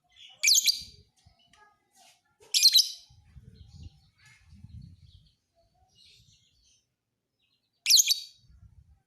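Lovebird giving three short, shrill chirping bursts with rapid up-and-down pitch sweeps: one near the start, one about two and a half seconds in, and one near the end, with faint chirps between them.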